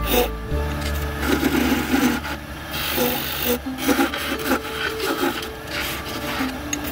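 Wood lathe spinning a cherry spindle while a turning chisel cuts it: a scraping, rasping cut that comes and goes in short strokes over the steady hum of the lathe.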